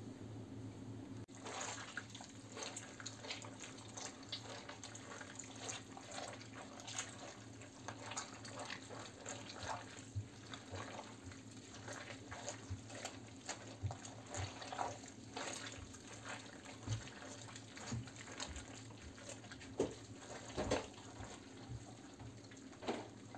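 Red grapes being crushed by hand with their skins in a plastic basin: irregular wet squelching and popping of berries and juice, starting about a second in, over a faint low hum.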